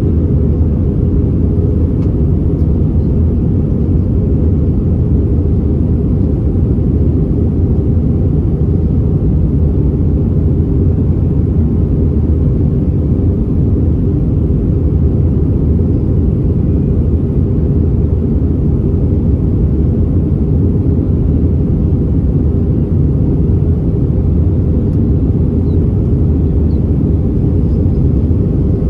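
Steady low rumble inside the cabin of an Airbus A320-232 airliner in flight: airflow and engine noise from its IAE V2500 turbofans, unchanging throughout.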